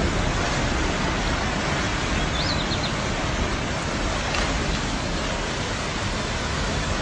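Muddy floodwater rushing in a flash flood: a steady, even roar of noise with no pauses.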